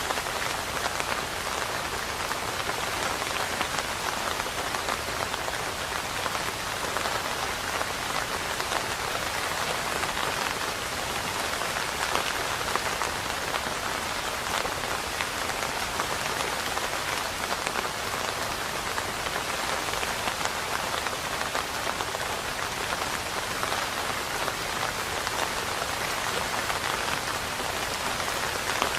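Steady rain falling on a surface: an even, unbroken hiss of many drops with no thunder.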